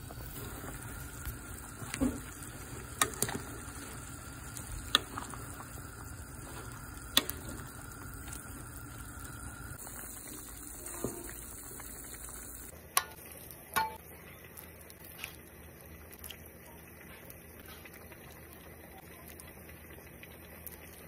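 Pot of beef bone soup bubbling on the stove, with a ladle stirring it and several sharp clinks of the ladle against the pot.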